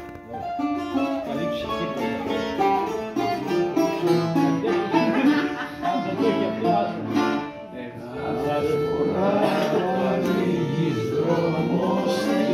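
Live acoustic Greek music: a bouzouki picks out quick melodic runs over strummed acoustic guitars and a small long-necked lute. After a short dip about two-thirds of the way through, the playing grows fuller and a man's voice comes in singing.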